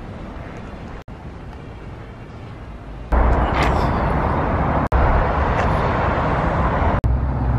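Steady outdoor vehicle noise with a low rumble, stepping up sharply louder about three seconds in and broken by a few abrupt momentary dropouts.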